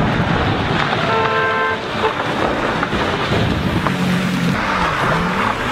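Ferrari Enzo's V12 engine driving past fast on a wet, muddy track over a steady rushing noise. A short steady tone sounds about a second in. Near the end the engine note dips and then climbs again.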